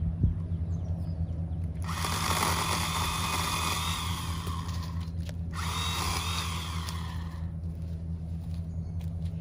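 Ryobi electric pole saw running as it cuts into a small branch: one burst of about three and a half seconds, a brief stop, then about two more seconds. A steady low hum runs underneath throughout.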